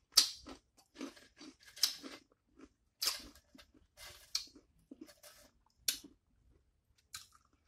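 A person chewing a crunchy chip dipped in cheese sauce: irregular crunches, roughly one a second, louder in the first half and thinning out near the end.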